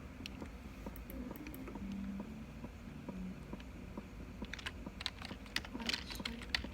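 Rapid clicking, like keys being pressed, coming thicker and sharper from about four and a half seconds in, over faint low steady notes.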